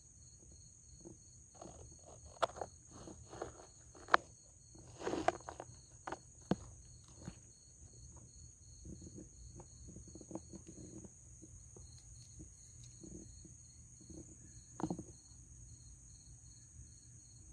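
Night insects trilling steadily, with a cricket chirping in an even pulse over them. Scattered crunches and rustles in dry bark mulch come and go, busiest in the first seven seconds and again briefly about fifteen seconds in.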